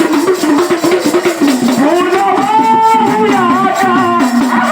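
Devotional song to Mahadev: a voice singing a melody over a steady held low drone, with rattling shaker-type percussion keeping time.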